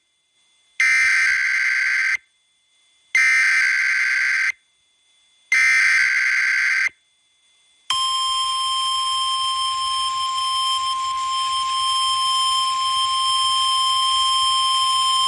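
Emergency Alert System header: three harsh bursts of digital data noise, each about a second and a half long with a second of silence between them, then about eight seconds in the long, steady, single-pitched attention tone begins and holds. This signals an emergency warning, here an extreme wind warning from the National Weather Service.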